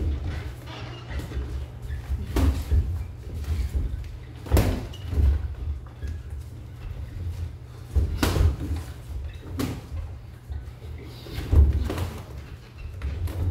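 Boxing gloves landing punches on headgear and gloves, with feet thudding on the ring canvas: irregular thuds and slaps, several of them loud.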